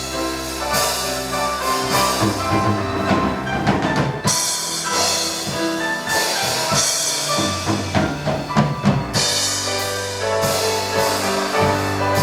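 Musical-theatre band music with a drum kit: held instrument chords over repeated drum and bass-drum hits.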